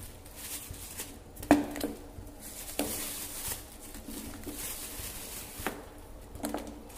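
Frozen peeled amla (Indian gooseberries) dropped one at a time into a steel pot of boiling water, each landing with a sharp knock or plop, the loudest about a second and a half in. The boiling water bubbles steadily underneath.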